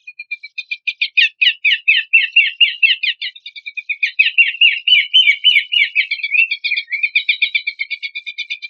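Songbird singing a rapid, chattering run of short repeated notes, about eight a second, louder and fuller through the middle and thinner near the end.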